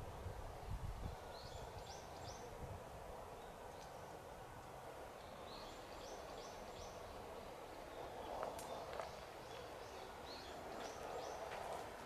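A small bird calling four times, each call a quick run of about four short high notes, over a steady outdoor hiss. A few faint clicks come about two-thirds of the way through.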